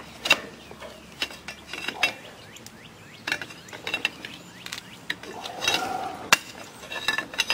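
Scattered metallic clicks, knocks and scrapes as the magneto-side engine cover of a Kawasaki KLF185 ATV is rocked and pried loose from the engine case by hand.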